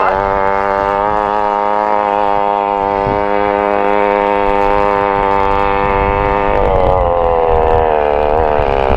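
Small gas engine of a stand-up motor scooter running at steady high revs as it is ridden, a buzzing note that drops slightly about two-thirds of the way in.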